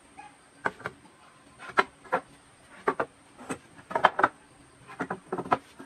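Wooden boards being handled and laid out on a worktable: a string of irregular wooden knocks and clacks as the planks are set down and bump against each other and the table.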